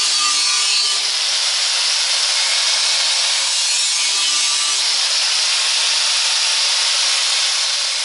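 Angle grinder with a cutting disc slicing through the steel wall of an empty LPG gas cylinder: a loud, steady grinding hiss as the disc works through the metal.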